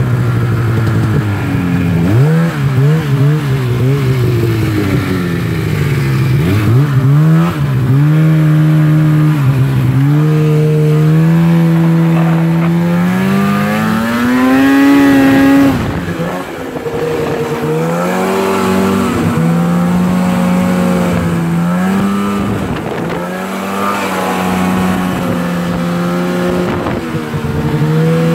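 Snowmobile engine heard from the rider's seat, its pitch rising and falling with the throttle as it runs along the trail. About halfway through it climbs steadily in pitch for a couple of seconds, then drops off suddenly.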